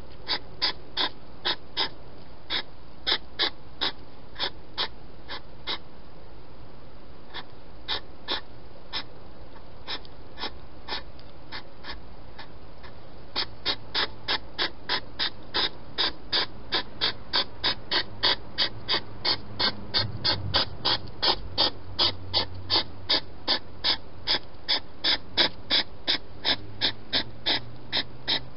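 A hedgehog chewing food close to the microphone: sharp clicking chomps, about two a second, spaced out for a while, then a steady run of about two and a half a second.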